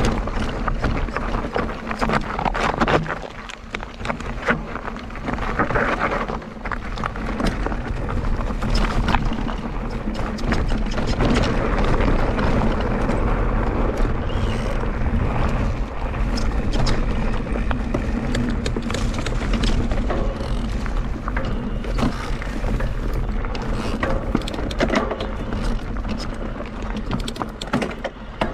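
Mondraker Crafty Carbon RR electric enduro mountain bike ridden down a rough trail. The chain and frame rattle steadily, tyres crunch over dirt and rocks with frequent sharp knocks, and wind rumbles on the camera microphone.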